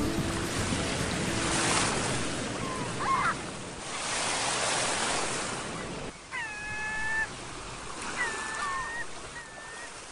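Ocean surf washing onto a beach in slow swells that rise and fall, fading towards the end. A few short high-pitched calls sound over it, the longest about six seconds in.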